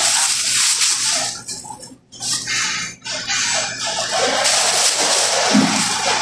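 Shopping trolley rolling over a supermarket floor: a steady hissing rattle that cuts out briefly about two seconds in and again about three seconds in.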